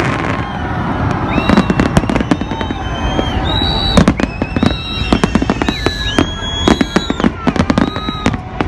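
Fireworks display: a rapid run of sharp bangs and crackles from bursting shells, loudest about four seconds in, with short high whistles gliding through it.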